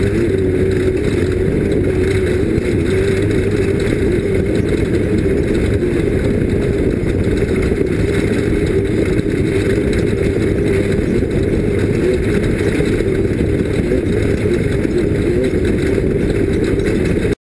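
Off-road race vehicle's engine running steadily under load, its pitch wavering slightly, over a dense rumble of mechanical and road noise; the sound cuts off abruptly near the end.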